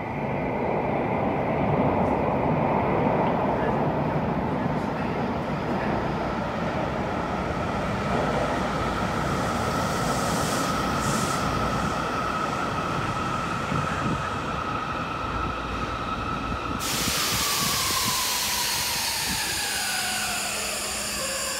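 Yokohama Municipal Subway 10000 series linear-motor train pulling into an underground station and braking to a stop: steady running rumble with a whine held at one pitch. About three-quarters through, a hiss starts suddenly and several whining tones fall in pitch as the train slows to a halt.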